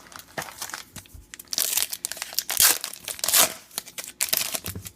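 A trading-card pack wrapper crinkling and tearing as it is opened by hand, in a run of irregular rustling bursts that are loudest in the middle.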